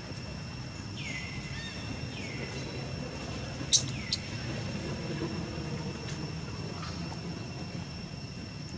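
Outdoor ambience: a steady high-pitched insect drone over a low rumble, with a few short high calls that slide down in pitch and one sharp click a little over a third of the way in.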